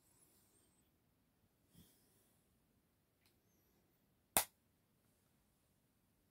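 Near silence, broken a little over four seconds in by a single short, sharp click.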